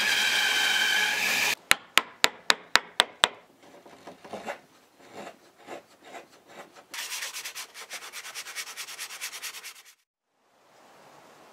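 Bandsaw cutting through a block of wood, running with a steady pitched whine that stops abruptly about a second and a half in. Then come seven sharp knocks, about four a second, and the softer scraping of a gouge hollowing a wooden ladle bowl. Last come about three seconds of fast rhythmic rubbing strokes on wood, which cut off near the end and leave a faint steady hiss.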